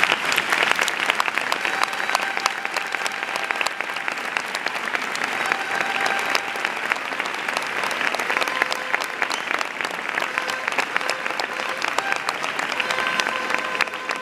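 Crowd applauding, a dense, steady clapping that holds throughout as the paso is carried in.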